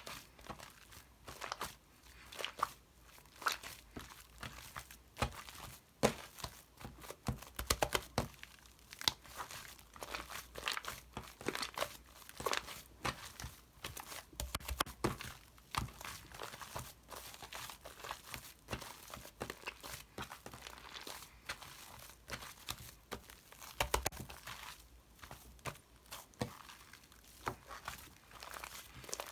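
Continuous irregular crinkling and crackling of something being handled, with a few louder knocks among the fine clicks.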